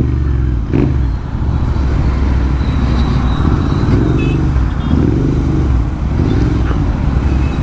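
Royal Enfield Interceptor 650 parallel-twin motorcycles riding in traffic, one fitted with a loud aftermarket AEW TE 101 exhaust; the engine note rises and falls with the throttle, with some exhaust crackle.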